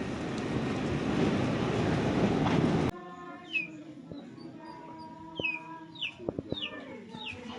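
Loud, steady noise that grows louder and stops abruptly about three seconds in. It gives way to birds calling, short whistled notes that fall in pitch, repeated about half a dozen times.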